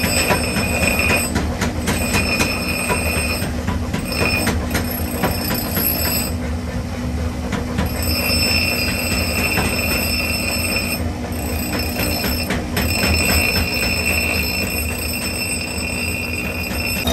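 Steel axe head, forged from railroad rail, ground against a spinning motor-driven abrasive disc. A continuous grinding rasp over a steady motor hum, with a high screech that comes and goes as the steel is pressed on and eased off.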